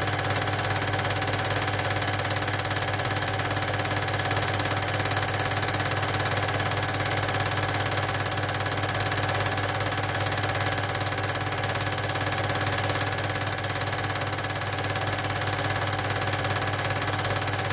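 Cine film projector running: a steady mechanical whirr with a fast, even flutter over a low hum.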